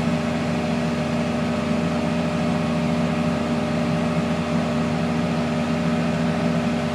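Large farm tractor's diesel engine running steadily under load while pulling a tillage implement, an even drone with no change in pitch.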